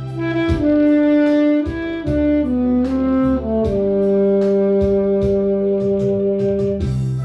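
Saxophone playing a trot melody over a backing track with bass and drums: the line steps downward through several short notes, then holds one long low note for about three seconds before the next phrase near the end.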